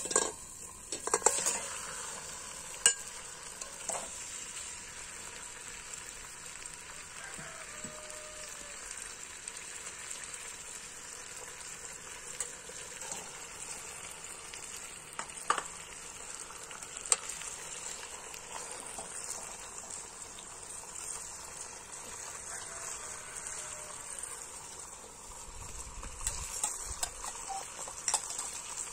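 Steady crackling hiss from a pot cooking over an open wood fire. A metal skimmer and bowl clink against the aluminium pot a few times near the start, twice midway, and again near the end.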